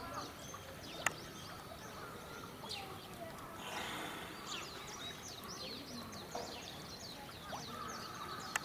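Small birds chirping in a busy series of short, high, falling calls over faint background voices, with two sharp clicks, one about a second in and one near the end.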